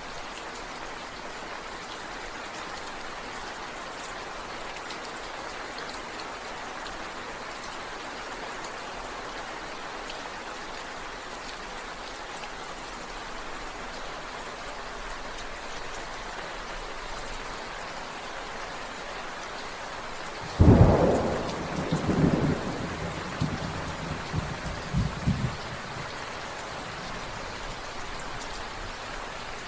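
Steady rain falling, with a sudden loud thunderclap about two-thirds of the way through that rumbles on in several rolls for about five seconds.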